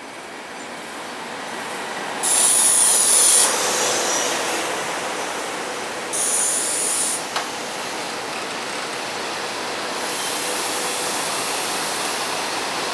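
SEPTA Silverliner IV electric commuter cars rolling past at low speed as the train pulls into the station, their wheel and running noise building. Two loud high-pitched squealing bursts come about two and six seconds in, the second followed by a sharp click.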